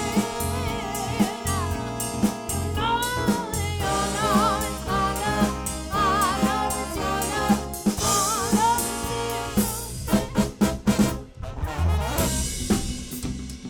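A live soul band playing: a drum kit keeps a steady beat under bass and a wavering lead melody line. A quick run of drum hits comes about ten seconds in.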